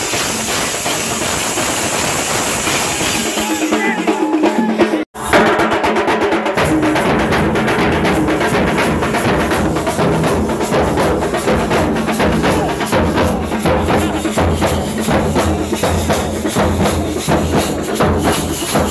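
Loud music driven by fast drumming and percussion, with a steady rapid beat. It drops out for an instant about five seconds in, then comes back with a heavier, deeper drumbeat.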